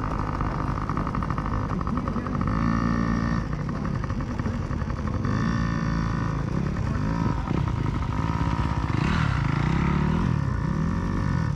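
Dirt bike engines revving up and easing off over and over, the pitch rising and falling every couple of seconds.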